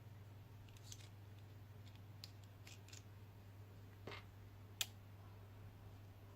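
A few faint, sharp clicks and taps of small TIG torch parts being handled, the sharpest about five seconds in, over a low steady hum.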